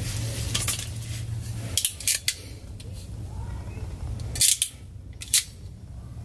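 Sharp snips and clicks of a hand crimping tool working the end of an electrical wire, six in all, the loudest two in the second half.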